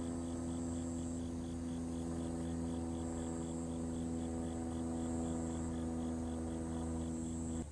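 A steady low hum at one fixed pitch, with a faint high chirp repeating about four to five times a second over it; both cut off suddenly just before the end.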